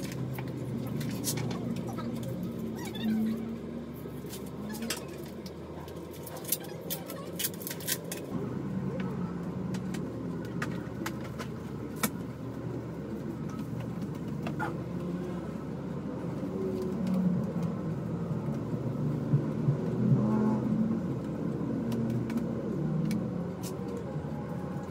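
Groceries and refrigerator parts being handled: scattered clicks and knocks of cartons and plastic being set down and moved, over a steady low background rumble.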